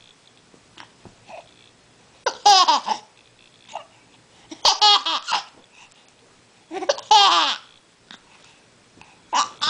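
Short bursts of high-pitched laughter, four of them about two seconds apart, each starting sharply and falling in pitch.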